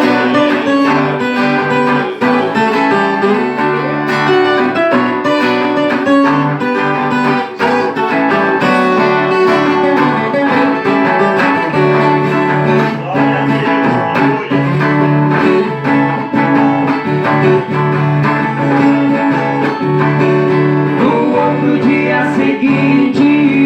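Acoustic guitar and Brazilian viola caipira playing an instrumental passage together with plucked strings, between sung verses of the song.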